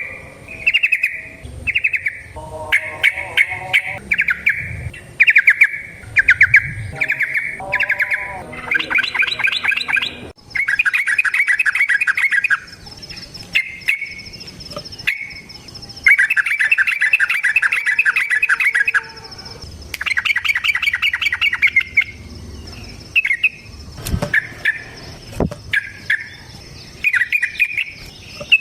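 Yellow-vented bulbul (trucukan) singing: bubbly chirped phrases broken by several long, rapid trilled runs of the 'ropel' song. A thin steady high tone runs beneath it from about a third of the way in.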